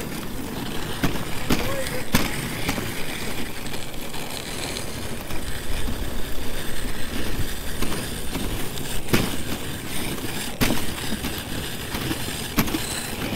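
Dog sled running over a hard-packed, icy snow trail: a steady scraping hiss from the runners, with occasional knocks and rattles as the sled jolts over bumps.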